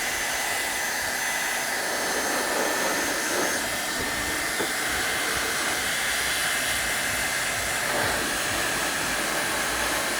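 Electric heat gun blowing hot air steadily onto scooter plastic, an even rush of air with a thin steady whine.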